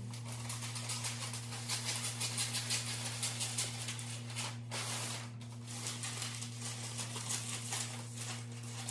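Rustling and crinkling of handled material, such as wrapping paper or plastic, in irregular bursts over a steady low hum.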